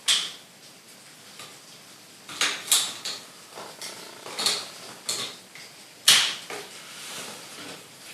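Hard plastic toy robot parts being handled and snapped together: a string of sharp clicks and clacks, about seven in all, the loudest right at the start and about six seconds in.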